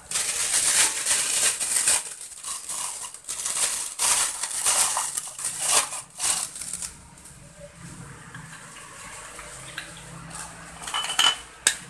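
Thin plastic piping bag crinkling and rustling in several bursts as it is handled and opened, dying down after about seven seconds, with a few light clicks near the end.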